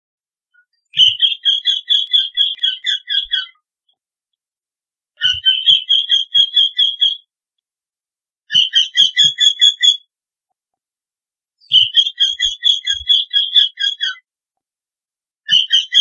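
Eurasian wryneck calling: runs of about ten evenly repeated notes at roughly four a second, each run lasting about two and a half seconds with a short pause between. Four full runs sound, and a fifth starts near the end.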